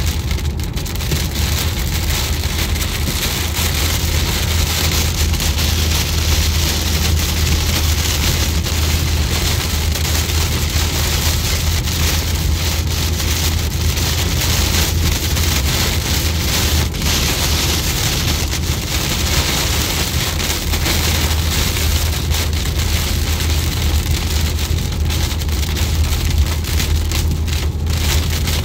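Heavy rain pelting the car's windshield and roof, heard from inside the moving car, over a steady low drone from the car driving on the wet highway.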